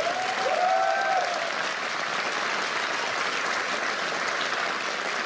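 Theatre audience applauding steadily, with a short held call from one voice rising and falling in the first second or so.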